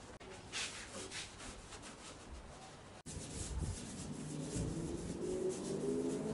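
Rag wiping the Land Rover's bare sheet-metal body panels with wax and grease remover, in repeated rubbing strokes, cleaning off old grime before sanding. In the second half the cloth squeaks on the cab roof, the squeak rising in pitch.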